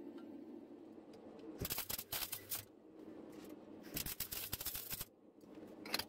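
MIG welder arcing in two short bursts of about a second each, a dense, rapid crackle, over a faint steady hum.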